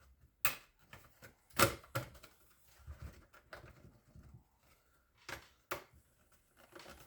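A handful of sharp clicks and knocks with faint rustling between them, the loudest about a second and a half in: a truck tachograph instrument being handled and set down on the bench as its reassembly is finished.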